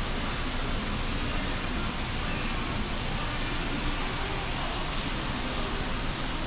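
Steady rushing noise with faint voices in the background.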